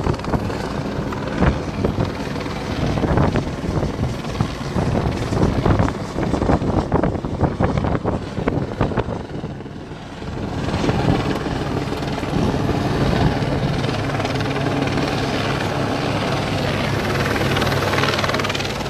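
Helicopter flying overhead: a steady rotor and engine drone, clearest from about halfway on. In the first half it is mixed with crowd noise and knocks on the microphone.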